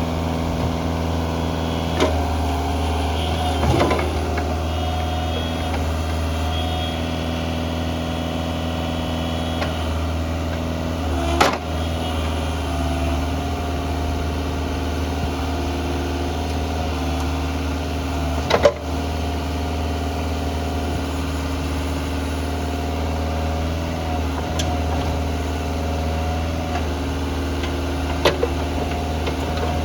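Bobcat 435 compact excavator's diesel engine idling steadily, with several short sharp clunks now and then, the loudest about eleven and nineteen seconds in.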